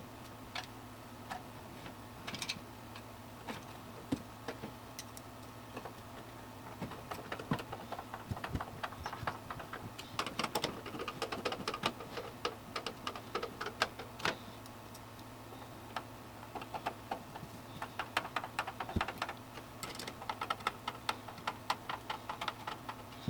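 Small hard clicks and light rattles of a component being screwed into a computer case, sparse at first and coming in quick irregular runs from about a third of the way in, with a short pause past the middle. A faint steady low hum runs underneath.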